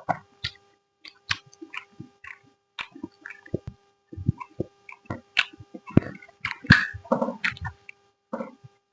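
Close-up eating sounds: wet chewing and lip smacks coming in irregular short bursts, busiest and loudest around the middle to latter part.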